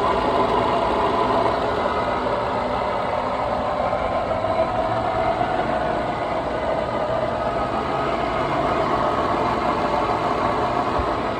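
Infiniti M45's 4.5-litre VK45DE V8 idling steadily with a rough, scratchy note. A mechanic friend suggests this could be a timing chain issue with worn chain guides.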